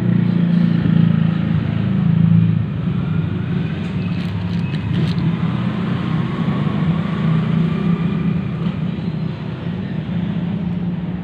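Steady low drone of a motor vehicle engine running, with a few light clicks about four to five seconds in.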